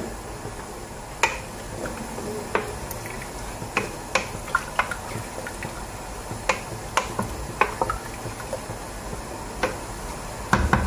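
Wooden spoon stirring meat in a tomato broth in a stainless steel pot, with irregular light clicks and knocks of the spoon against the pot.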